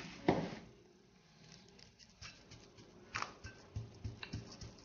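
Faint crunching and rustling of buttered digestive-biscuit crumbs pressed down by hand into a parchment-lined cake tin, with a couple of sharper clicks and a few soft knocks.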